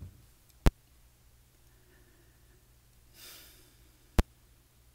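Two sharp clicks about three and a half seconds apart, with a single breath between them, over a faint steady room hum.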